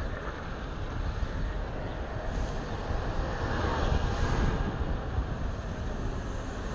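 Steady low road noise from a Onewheel XR rolling over city asphalt, tyre and wind noise mixed with street traffic. It swells briefly a little past the middle.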